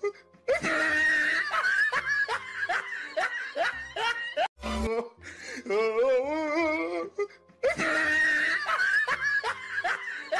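Looped comic laughter sound effect over music: a sliding, pitched laugh, then a stretch of quick cackles and giggles, the same pattern repeating about every seven seconds.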